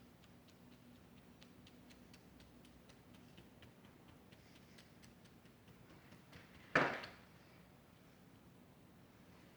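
Faint, light ticks several times a second, then a single loud short knock or clatter about seven seconds in.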